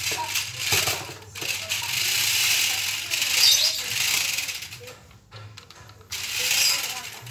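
Remote-control toy off-road car's small electric motors and plastic gearboxes whirring and rattling as it drives across a tiled floor on its mecanum-style wheels. It runs in spurts, dropping off about five seconds in and starting up again near the end.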